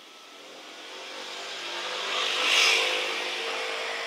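A motor vehicle passing close by, swelling to a peak a little past halfway and then fading, over a steady engine hum.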